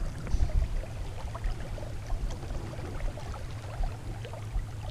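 Swift, shallow river water running over rocks around a wading angler, with low irregular rumbling on the microphone.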